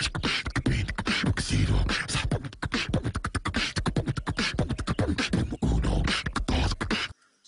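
Beatboxing: a human voice making fast drum-like kicks, snares and hi-hat clicks in a quick, continuous rhythm, cutting off sharply just before the end.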